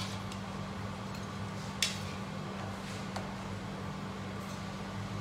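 Steady low hum of kitchen ventilation, with a few light clinks of a spoon against a pan and plate. The sharpest clink comes about two seconds in.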